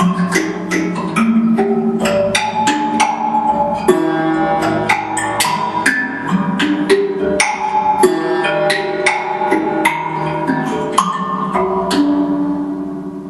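Hand-built instrument of bent metal rods, springs and metal strips on a wooden board, played by hand: a fast, irregular run of sharp plucked metallic notes that ring on over a few held pitches.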